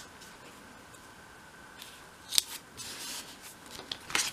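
Blue masking tape being handled and laid onto a sheet of clear acetate: one sharp click about two and a half seconds in as a strip comes free, then brief rustling and small ticks near the end as the strip is pressed down.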